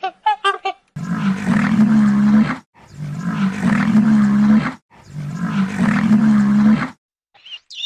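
A large animal calling three times, each call a deep, steady, rough sound lasting a little under two seconds with short pauses between. The calls follow a few quick, higher pitched chirps in the first second.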